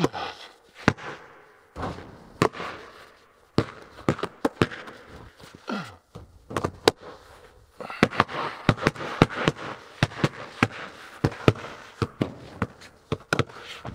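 Basketballs bouncing hard on a concrete floor and banging off the hoop, a rapid series of separate thuds, each echoing in a large empty metal-walled barn.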